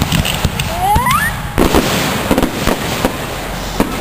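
Fireworks display: a string of aerial shell bursts, about seven sharp bangs and crackles over four seconds, with a brief rising whistle about a second in.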